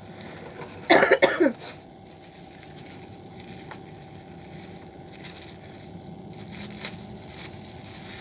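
A person coughing, a short burst of a few coughs about a second in, followed by a few faint clicks.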